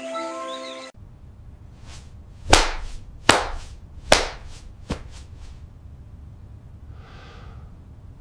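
Music stops about a second in. Then a run of sharp cracks follows over a low rumble: three loud ones less than a second apart, with several fainter ones around them.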